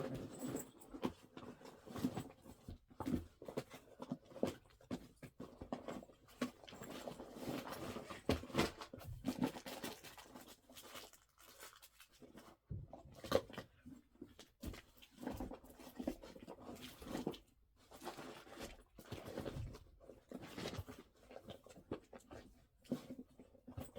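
Rummaging through a backpack: irregular rustling and handling noise with small knocks as things inside are moved about.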